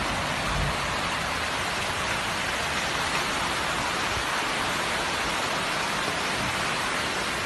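Heavy rain and fast-flowing floodwater rushing down a street in a flash flood: a steady, even rushing hiss.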